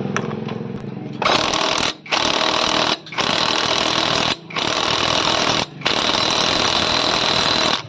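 A compressed-air tool hissing and rattling in five bursts of about one to two seconds each, with short breaks between them.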